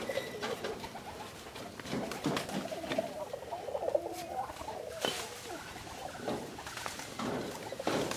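Wire mesh rustling and scraping as it is spread over bricks on concrete, with a few sharp knocks as a brick is set down on it. Birds coo in the background.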